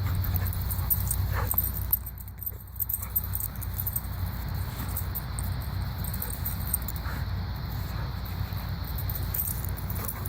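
Dogs wrestling and scuffling at play, with light metal jingling and small clicks as they move, over a steady low hum.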